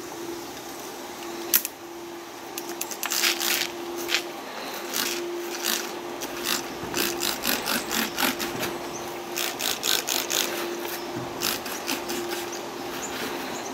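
Trigger spray bottle of Scent Blocker Trinity Blast scent-eliminator spray being pumped over and over, a quick click and hiss with each squirt, many squirts in a row beginning about a second and a half in, as it is sprayed down over camo clothing and boots.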